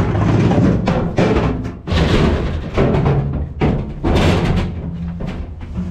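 Knocks and scraping from a removable boat seat being moved and set back into its pedestal base, over music with drum beats and a bass line.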